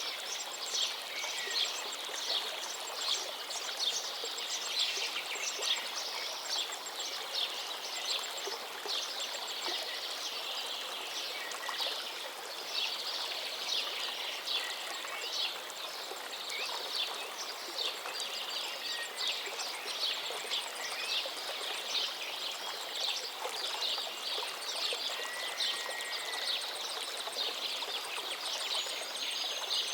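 A river flowing steadily, with many small birds chirping and calling over it in a dense, continuous chorus of short high notes.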